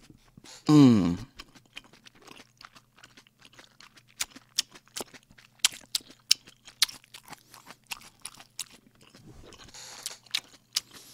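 A person chewing food close to the microphone. The mouth makes many small, irregular wet clicks as it works through a mouthful of cream jjamppong noodles. About a second in there is a short hum that falls in pitch.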